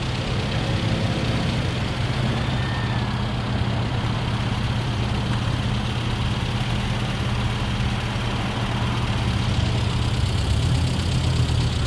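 A car engine idling steadily, a little louder near the end.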